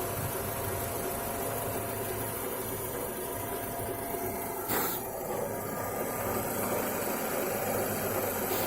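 Car engine idling with a slight steady metallic hum and rustle, which the owner suspects comes from the power-steering pump bearing. A single short click about halfway through.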